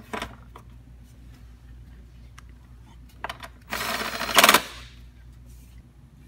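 Light clicks and knocks of parts being handled, then, about halfway through, a burst of rapid rattling clicks lasting about a second as the engine cover is fitted back on.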